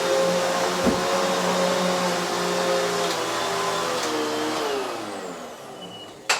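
Hoover HushTone 15 commercial upright vacuum running, then winding down after being switched off: its motor tones fall in pitch and fade over the last two seconds. There is a low thump about a second in and a sharp click just before the end.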